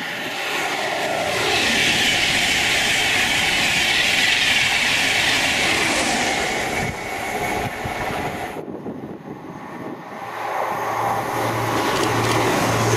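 An East Coast express passenger train passing at speed, a loud rushing rumble of wheels and air that dies away about seven or eight seconds in. Near the end a Grand Central Class 180 diesel unit approaches, its engine hum growing louder.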